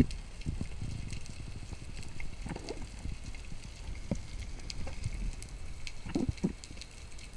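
Underwater ambience picked up by a camera in its housing: a low, uneven rumble of water movement with scattered faint crackling clicks, and one sharp thump at the very start.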